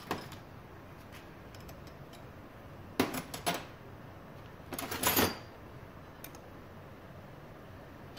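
Metal hand tools and parts clinking against an outboard powerhead block as a drill guide is fitted over a broken screw and snugged with a small wrench: one sharp clink at the start, then two short clusters of clinks and rattles about three and five seconds in.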